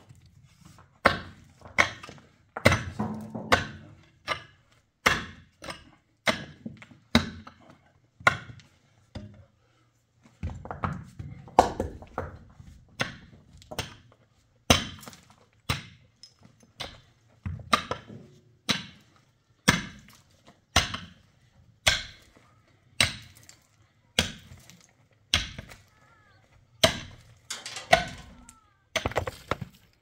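Metal shovel digging into stony soil: the blade strikes and scrapes into earth and stones about once a second, with a short pause about nine seconds in.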